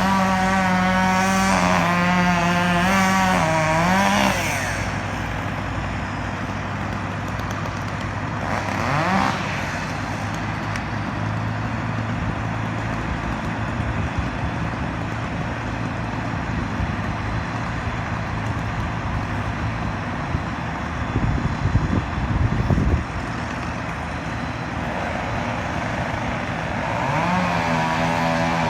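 Small two-stroke gas chainsaw running at high revs, dropping back to a lower steady idle, with one brief rev about 9 seconds in, and back up to high revs near the end. A few loud irregular knocks come about 21 to 23 seconds in.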